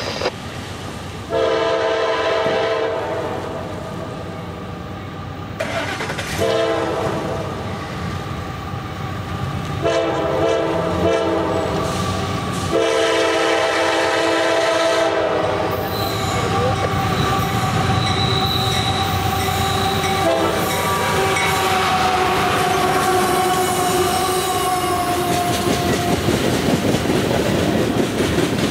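Horn of a CSX GE AC4400CW diesel locomotive sounding four blasts for a grade crossing, then the locomotives and a freight train of tank cars and covered hoppers rolling past, wheels clicking over the rail joints with a steady high wheel squeal.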